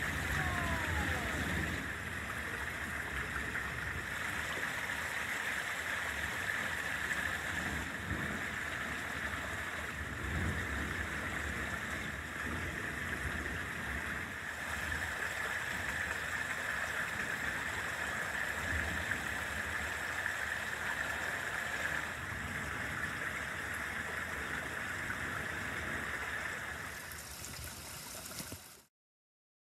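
Steady rain falling in a thunderstorm, a constant hiss over a low rumble that rises and falls. It cuts off abruptly near the end.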